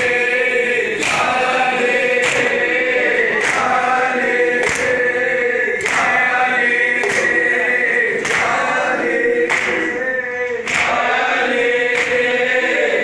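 Men chanting a noha, the Shia lament, led by a singer on a microphone. Sharp chest-beating blows (matam) keep an even beat of about one every 1.2 seconds.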